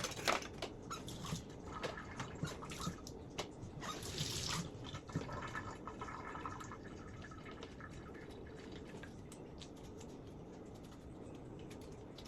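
Kitchen sounds: small knocks and clicks of items being handled, with water trickling, over a low steady hiss that fills the second half.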